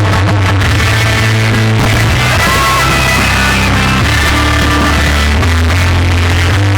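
Loud rock music with a heavy bass line of held notes that change every second or so.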